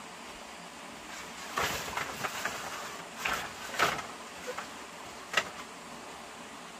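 A few sharp knocks and rustles over a steady background hiss, clustered between about a second and a half and four seconds in, with one more knock a little after five seconds.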